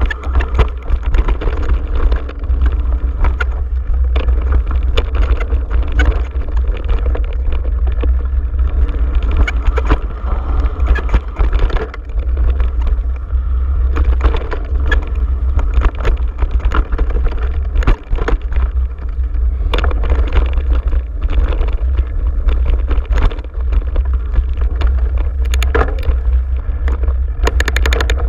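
Mountain bike riding fast down a dirt trail: wind rumbling on the microphone, tyres on dirt, and frequent short rattles and knocks as the bike goes over bumps.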